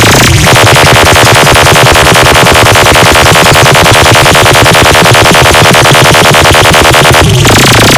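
Very loud, distorted DJ track: a buzzing electronic tone that pulses rapidly over a heavy bass beat. It cuts off suddenly near the end, back into noisier bass-heavy music.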